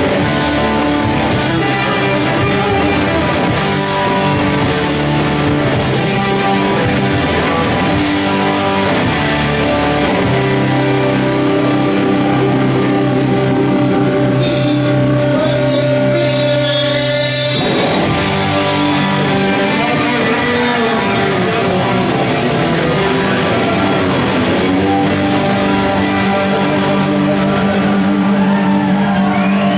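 A live rock band plays the instrumental outro of a song on electric guitars, electric bass and drums, with sustained chords. About two-thirds of the way in the playing changes, and notes gliding up and down follow.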